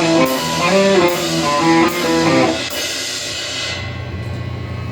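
Rock band playing: guitar notes over drums, with a cymbal crash about every 0.8 s. The playing stops under three seconds in, leaving the guitars and amplifier hum to ring out and fade.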